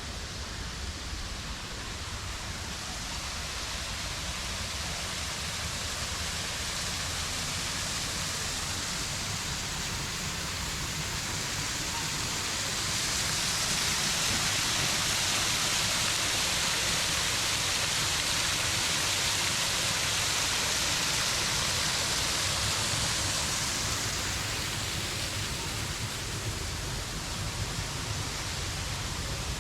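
Steady rushing of falling water from an artificial waterfall, growing louder and brighter about a third of the way in and easing off again near the end.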